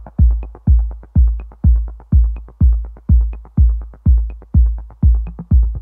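Background electronic music with a steady kick-drum beat, about two beats a second.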